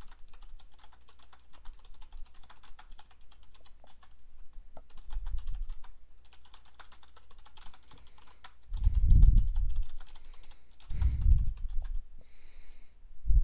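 Typing on a computer keyboard: a fast, irregular run of key clicks through most of the first eight seconds. Three low, muffled thumps about 5, 9 and 11 seconds in, the later two the loudest sounds.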